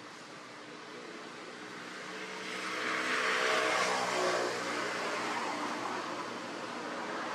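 A motor vehicle passing close by: engine and tyre noise swell to their loudest about three and a half seconds in, then ease off only a little.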